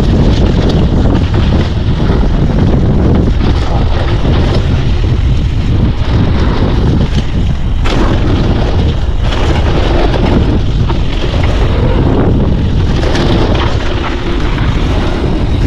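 Wind buffeting the microphone as a mountain bike rides fast down a dirt trail, with tyre noise and the bike rattling over bumps. There are a few sharp knocks, about 8 and 9 seconds in.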